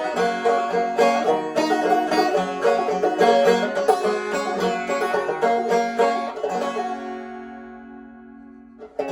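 Instrumental banjo break of an old-time country song, fast picked notes that settle about seven seconds in on a final chord ringing and fading away.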